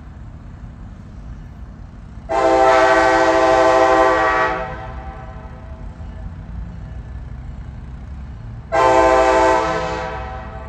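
Kansas City Southern diesel locomotive's air horn sounding a chord of several notes at once: one long blast a couple of seconds in, then a shorter blast near the end, over a low steady rumble.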